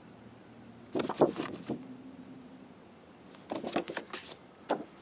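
Postcards and photo cards being handled: two short flurries of crisp rustling and tapping, about a second in and again past the middle, with a single sharp click near the end.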